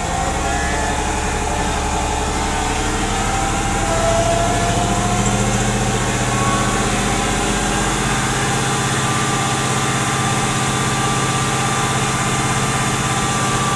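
Mercedes AMG 55 V8 engine running steadily with the revs held up above idle, its pitch shifting gently, while the oxygen sensors warm up for a fuel-trim check.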